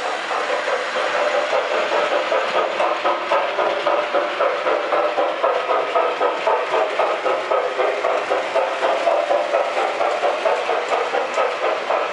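Model train sound system playing a rhythmic engine sound, pulsing about three times a second.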